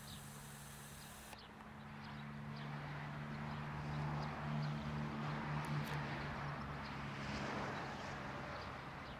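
The steam whistle of Norfolk & Western 611 blowing one long, low two-note chord. It grows louder about two seconds in, wavers as it swells in the middle, and stops just before the end.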